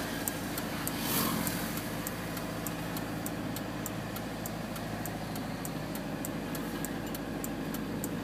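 Truck engine idling steadily, heard inside the cab, with a light regular ticking about three times a second. There is a brief rush of noise about a second in.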